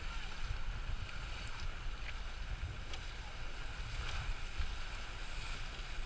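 Wind buffeting the microphone as an uneven low rumble, over a steady hiss of water around jukung outrigger sailing canoes on the sea.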